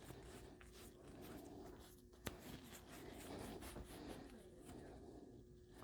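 Faint scratchy rubbing of a tube cutter's wheel being turned around a copper pipe, scoring it, with one sharp click a little over two seconds in.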